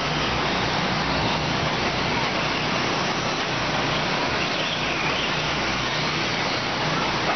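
Steady noisy wash from 1/10-scale electric 4WD short course RC trucks racing on a clay track, with faint motor whines rising and falling a little past the middle.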